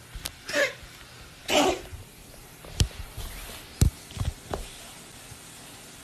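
A domestic cat sneezing twice, about a second apart, in short sharp bursts. A few sharp knocks and low thumps follow in the second half.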